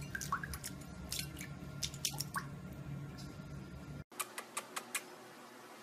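Sphynx cat pawing at water in a bowl: small splashes and drips with scattered taps over a steady low hum. About four seconds in this gives way to a quieter stretch with a few short soft clicks.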